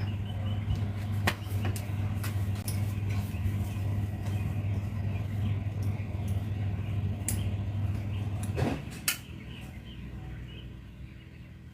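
Steady low hum from the powered speaker and amplifier chain as it is plugged in, with scattered clicks and knocks of cables and equipment being handled. The hum stops about nine seconds in, followed by a sharp knock.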